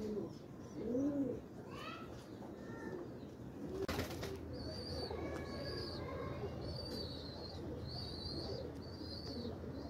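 Domestic pigeons cooing in low, arching calls, with other birds' short high chirps repeating about once a second in the second half. There is a sharp click about four seconds in.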